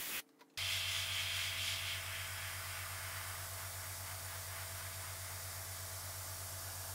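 Airbrush spraying paint: a steady hiss of air, strongest for the first second or so after a brief dropout, over a low steady hum.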